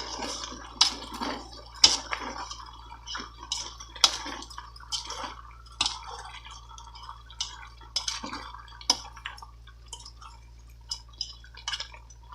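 Chicken pieces frying in a pot over high heat, sizzling, with irregular sharp pops and clicks every second or so.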